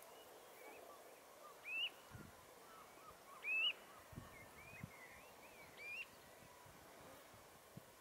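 Wading birds calling on a mudflat: three sharp, clear whistled notes that rise and fall, about two seconds apart with the middle one loudest, over soft scattered twittering.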